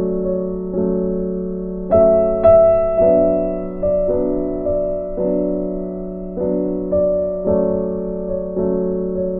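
Slow background music on a piano-like keyboard: chords struck about once a second, each left to ring and fade.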